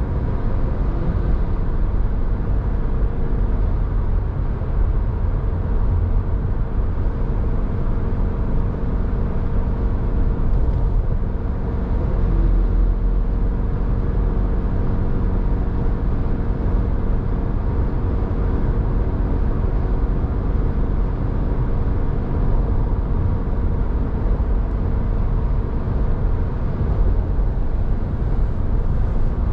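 Steady road noise of a vehicle driving in traffic: a continuous low engine and tyre rumble with a few steady engine tones, even throughout.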